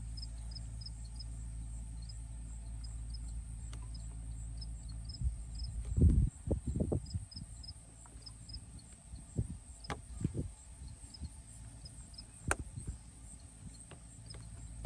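Hand-handling noise as a poly drip-irrigation mainline is pierced with a hole-punch tool and a barbed coupling is pushed in: a cluster of thumps and rustles midway, then a few sharp clicks. A high, regular insect chirping runs behind it.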